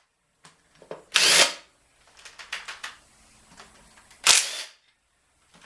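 Two short bursts from a power tool, about a second in and again about four seconds in, with small metal clicks and clinks of parts being handled between them.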